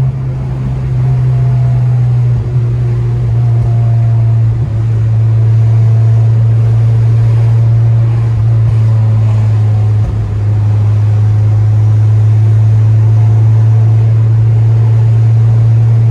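Steady low drone of a 9th-gen Honda Civic Si's 2.4-litre four-cylinder engine and exhaust while driving, with brief dips a few times as the throttle eases.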